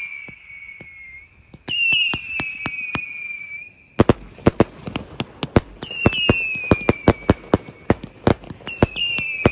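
Fireworks going off at close range: several high whistles at once, each falling slightly in pitch, then a rapid string of sharp bangs from about four seconds in that keeps up alongside more whistles.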